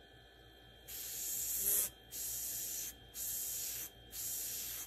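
Airbrush spraying paint in four short bursts of hiss, each about a second long with brief gaps between, starting about a second in.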